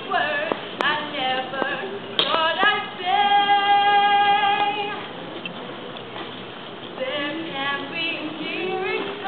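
A woman singing solo and unaccompanied: a run of short sung phrases, then one long held note about three seconds in lasting some two seconds, followed by softer phrases that build again near the end.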